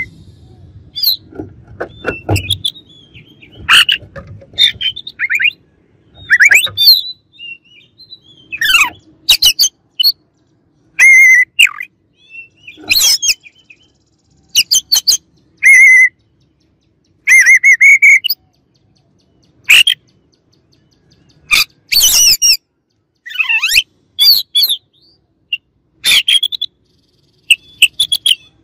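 Oriental magpie-robin singing in short, loud phrases with pauses between them. It mixes clear whistled notes, some held and wavering, with harsh chattering calls.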